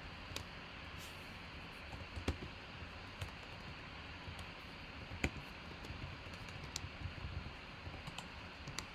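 Scattered light clicks of typing on a computer keyboard, irregular and sparse, over a faint steady hiss.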